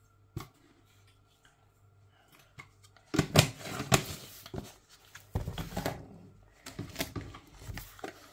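Kitchen handling noises: one sharp click about half a second in, then from about three seconds, loud irregular clattering and rustling.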